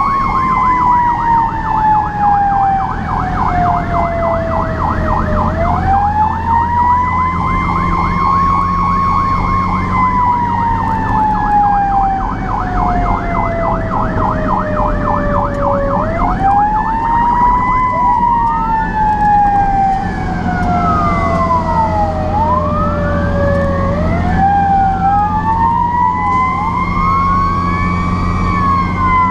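Fire truck sirens on an emergency run. One siren twice climbs quickly and then slowly falls in pitch, with a rapid warbling yelp over the first few seconds. From about two-thirds of the way in, a second siren sweeps up and down faster across it. A truck's engine drones steadily underneath.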